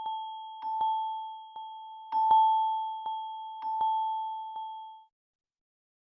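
Samsung Galaxy phone ringtone: a single bell-like chime note struck again and again, a strike about every three-quarters of a second, each one ringing on and fading. It dies away about five seconds in.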